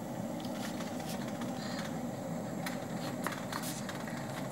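Home orange-blossom-water still boiling over a gas burner: a steady low rumbling hiss with a few faint ticks, while distillation is underway.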